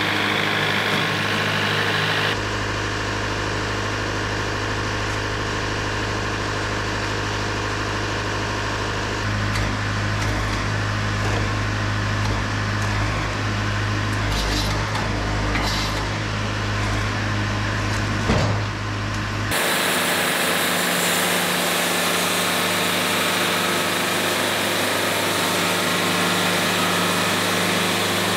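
Wood-Mizer LT70 Super Wide band sawmill running steadily as its band blade saws through a knotty pine log. The machine's sound changes abruptly twice, once about two seconds in and again about two-thirds of the way through.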